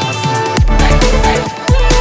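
Electronic dance music with a heavy beat of deep bass kicks that drop in pitch. The bass drops out for the first half second and again briefly near the end, then comes back in loud.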